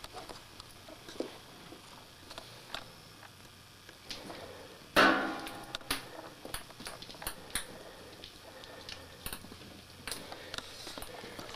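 A cat close to the microphone making small chewing and clicking noises, with one loud, short cry about five seconds in.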